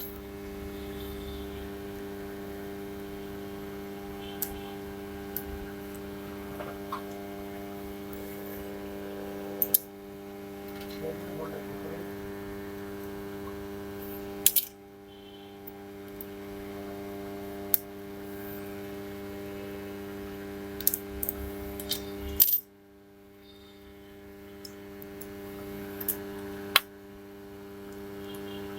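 Steady electrical hum, with a sharp click or tap every few seconds as tools and small parts are handled while a smartphone is taken apart.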